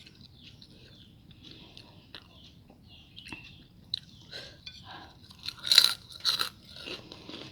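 Close-up eating sounds: soft chewing and small mouth clicks, then two loud crunchy bites near the end.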